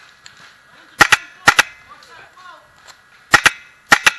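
HPA airsoft rifle (Redline N7) firing four short bursts of two or three sharp shots each, about a second in, at one and a half seconds, and twice near the end.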